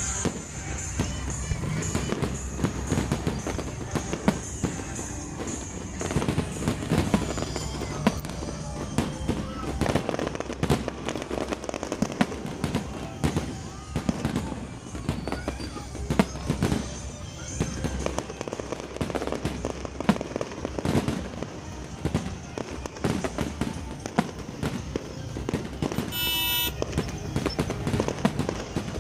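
Aerial fireworks going off: a rapid, irregular run of bangs and crackles over music.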